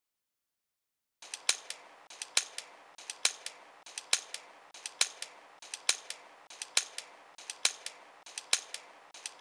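Sharp clicks and cracks in a strictly even repeating pattern: a loud crack a little under once a second with lighter clicks between. It starts about a second in, after dead silence.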